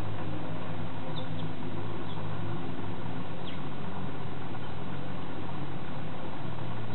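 A steady low hum under a constant hiss, with a few faint, short high chirps.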